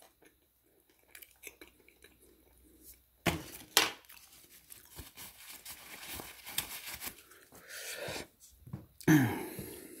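Close-up eating sounds: paper food wrappers crinkling and tearing amid chewing, with scattered clicks and a rustling stretch in the middle. There is a brief low vocal sound near the end.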